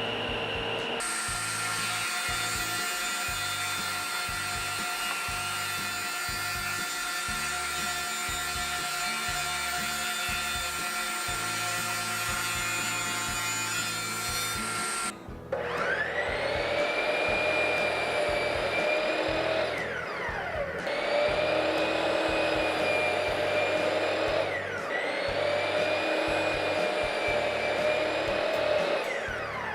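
Power saw running and cutting wood. In the second half it is started three times: each time it winds up, runs for a few seconds, then spins down quickly.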